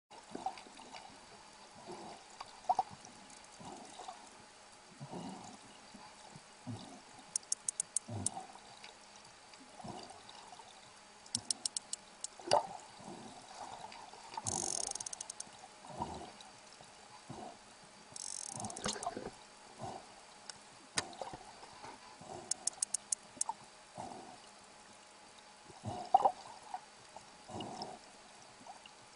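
Underwater water noise and sloshing from a swimmer's movements, with three short runs of rapid, evenly spaced clicks from sperm whales, about five to seven clicks each. There are also two brief hissing bursts near the middle.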